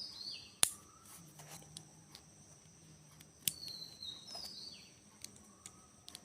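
A few sharp plastic clicks as Lego pieces are handled and pressed together, likely the wheels being fitted. Short bird chirps come faintly from the background twice.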